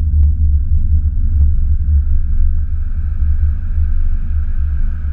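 Car driving over a cobblestone street, heard from a camera mounted on its side: a loud, steady low rumble of tyres and road, with a fainter whine that rises slowly in pitch.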